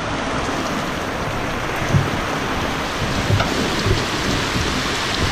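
Heavy rain pouring onto a sailing catamaran's deck and cockpit canopy: a dense, steady hiss, with a few dull low thumps.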